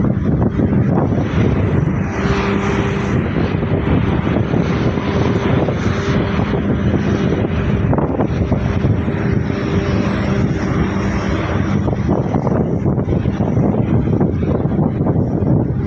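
An engine running steadily, with a constant droning hum.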